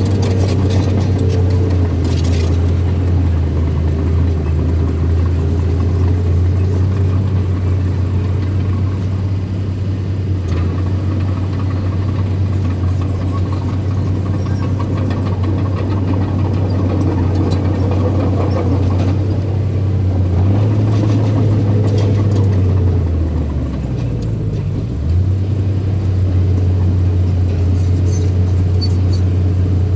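A small bulldozer's diesel engine runs steadily and loudly under load. About three-quarters through, its pitch sags for a couple of seconds, then picks back up.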